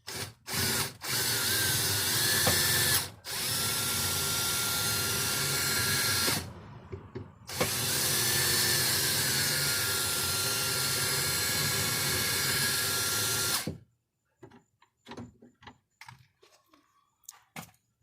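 Power drill drilling out the head of a rivet holding a car door handle, running in long steady stretches with a short break about six seconds in, its motor pitch rising as each run starts. It stops about fourteen seconds in, leaving a few light clicks and taps.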